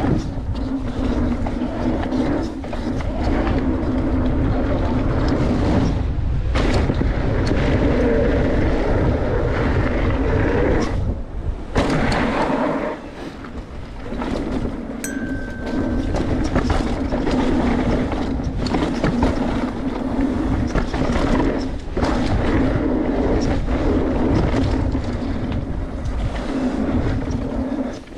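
Mountain bike ridden down a dirt freeride trail, heard through a mounted action camera: steady tyre rumble and frame and drivetrain rattle, with a few sharp knocks.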